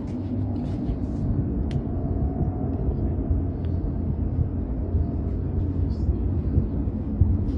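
Steady low rumbling noise, growing slightly louder over the first second, with a few faint ticks.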